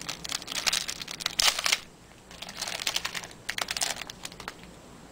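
Trading cards being handled and flipped through from an opened pack, a run of quick clicks and crinkly rustles in two spells with a short pause between.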